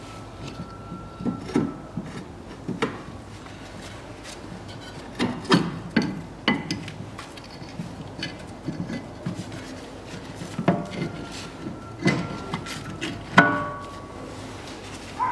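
Front steering knuckle and hub being worked by hand over the drive shaft and onto the ball joint: scattered metal clunks and knocks with some rubbing, the loudest about 13 seconds in.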